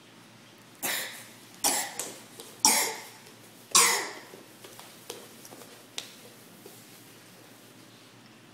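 A person coughing four times, about a second apart, loud and close, followed by a few faint ticks.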